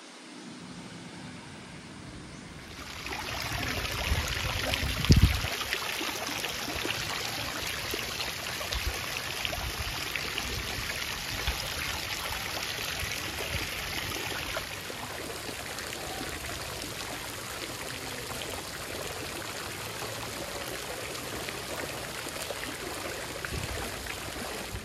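Pool deck jets spraying arcs of water into a swimming pool: a steady splashing rush that starts about three seconds in. A dull thump about five seconds in.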